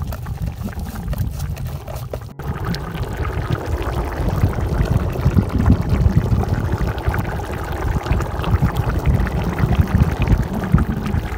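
Mutton stock and rice boiling hard in a large aluminium pot over a wood fire: dense, steady bubbling and popping, fuller after a brief break about two seconds in. This is the pulao's rice cooking in the stock while the water boils down before the dum stage.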